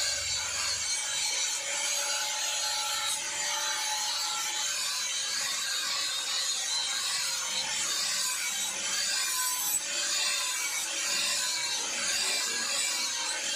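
Angle grinder running steadily with its disc ground against a sword blade: a steady motor whine under a continuous grinding hiss.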